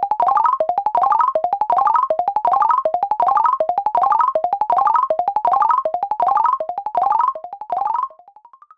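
Synthesized electronic sound effect: a quick rising run of short notes, repeated nearly three times a second, that drops in volume near the end and fades out.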